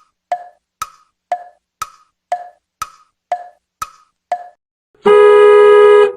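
Wood-block tick-tock, sharp clicks about two a second alternating between a lower and a higher pitch, then about five seconds in a steady buzzer tone that lasts about a second.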